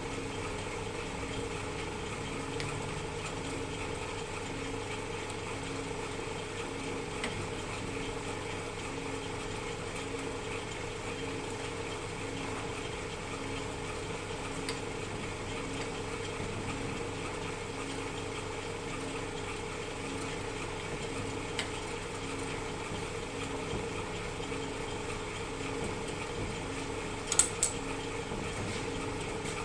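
Metal lathe running steadily: a continuous machine hum with a faint regular pulse. A few sharp metallic clicks come near the end.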